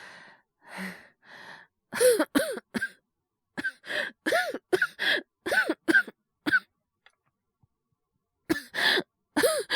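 A man's voice-acted coughing fit, playing a character sick with a cold and fever: short harsh coughs in three bouts, a few about two seconds in, a long run through the middle, and more near the end, with breathy breaths before the first bout.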